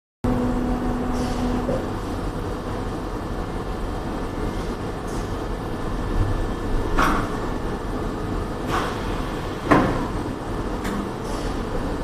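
Pneumatic high-frequency welding and cutting machine working: a steady running noise with a hum, short hisses of air, and several sharp clacks about seven to eleven seconds in, the loudest near ten seconds, as its slide table and press move.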